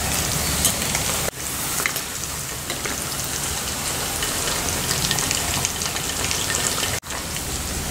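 Cornflour-coated chicken pieces deep-frying in hot oil in a steel kadai: a steady crackling sizzle, with two very short breaks, about a second in and about a second before the end.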